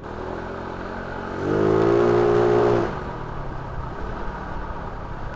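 Yamaha Mio Sporty scooter's single-cylinder four-stroke engine, bored up to 59 mm with a 28 mm carburettor, running under way. About a second and a half in, it revs up, holds for about a second and a half, then eases off.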